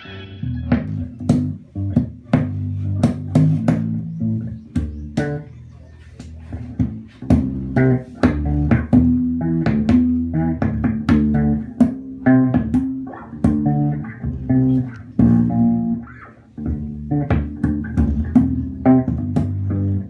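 Electric bass guitar played through an amplifier: a fast run of deep plucked notes, each with a sharp, clicky percussive attack. The playing eases off briefly about a third of the way in and again around three quarters of the way through.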